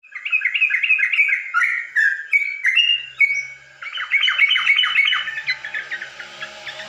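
Yellow-vented bulbuls (crucukan) singing: quick, bubbly runs of notes, with a short pause about three and a half seconds in, then a fast burst of notes that fades out after about five seconds.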